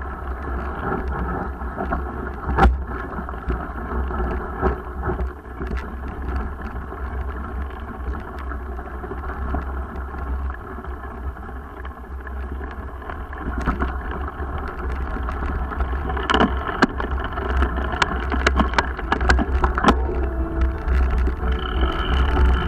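Mountain bike ridden over a rough dirt trail, heard through a bike-mounted action camera: a steady low rumble of wind and tyres on gravel, with frequent clicks and rattles of the bike over bumps that come thicker in the last few seconds.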